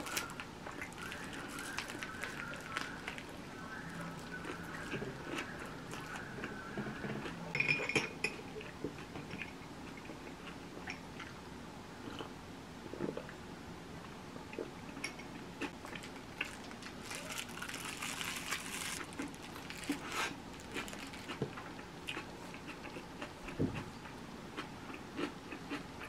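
Close-up eating sounds: biting into and chewing a bulgogi burrito in a flour tortilla, with small crunches and clicks throughout. Its wrapper crinkles about two-thirds of the way through.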